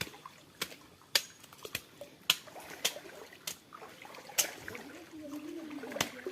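Paddle strokes in shallow water: a sharp splash or knock against the hull about every half second to a second, with water trickling and sloshing around a small boat.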